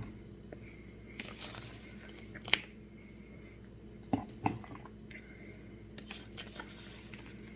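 A large ladle spoon scooping and scraping in a container, with three sharp clinks, the first and loudest about two and a half seconds in and two more close together a little after four seconds.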